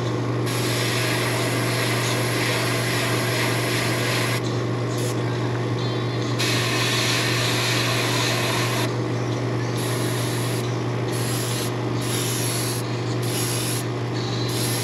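Airbrush spraying paint in hissing bursts of air as the trigger is pulled and released: two long bursts of a few seconds each, then several short ones, over a steady low hum.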